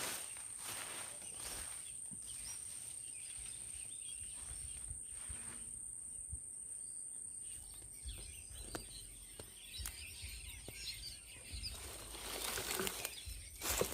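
Quiet outdoor ambience: faint bird chirps over a steady high-pitched whine, with scattered small clicks and rustles of handling.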